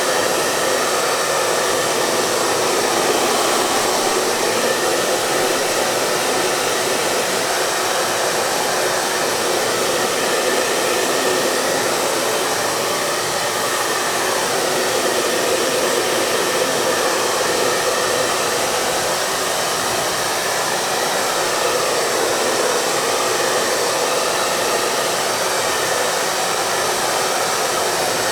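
Hair dryer running steadily on one setting: an even, continuous rushing hiss of blown air and motor, with little deep rumble.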